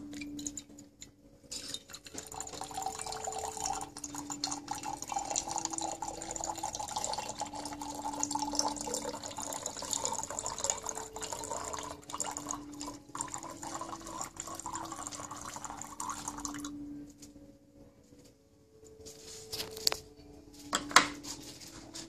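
A thin stream of water pouring from a small Yixing clay teapot's spout into a glass pitcher, running for about fifteen seconds and creeping up in pitch as the vessel fills, then stopping. A few sharp clinks follow near the end as the clay and glass are handled.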